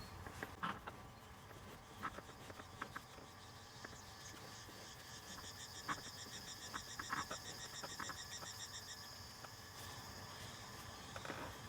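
Faint scattered clicks and light scrapes of hand work, as old grease is cleaned out of a drive shaft's constant-velocity joint. A faint, rapidly pulsing high trill, like an insect, runs in the background from about four to nine seconds in.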